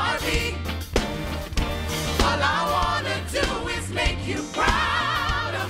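Gospel choir singing live with instrumental backing, voices holding two long notes with a wavering vibrato, about two seconds in and again near the end.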